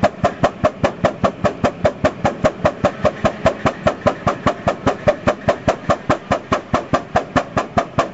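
Steam engine exhaust chuffing from the mill's exhaust pipe in a steady, rapid rhythm, about five puffs a second.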